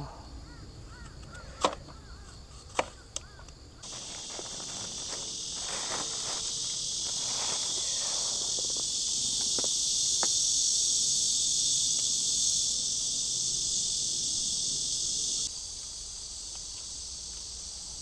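Beef burger patties sizzling in a frying pan, a steady high hiss that starts abruptly about four seconds in and cuts off a couple of seconds before the end. A few light clicks come before it.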